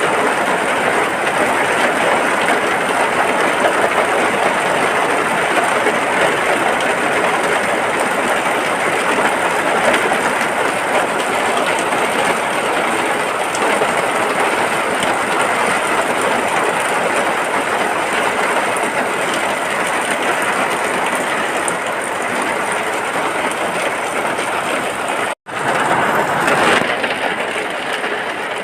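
Steady heavy rain, an even continuous rush of falling water, which drops out for an instant near the end and then carries on.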